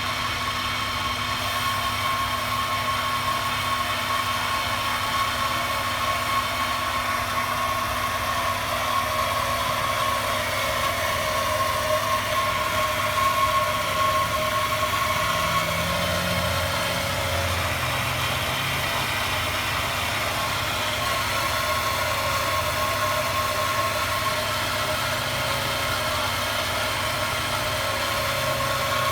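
1998 Honda Accord EX engine, at 195,000 miles, idling steadily with a constant high-pitched whine over the engine note.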